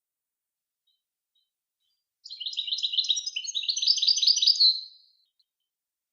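A songbird singing one song phrase on a recorded tutor tape: starting about two seconds in, a fast run of repeated chirping notes that grows louder and stops after about three seconds.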